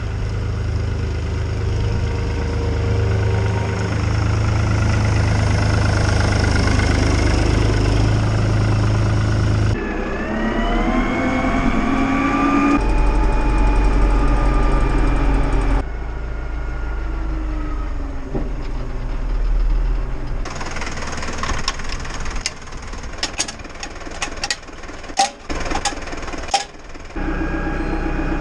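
Engines of farm machinery running, in several clips cut together. In one the pitch rises as the engine picks up speed, and a later clip holds a string of sharp knocks.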